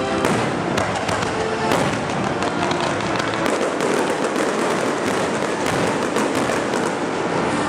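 Aerial fireworks bursting in quick succession: many overlapping bangs and crackles with no pause between them.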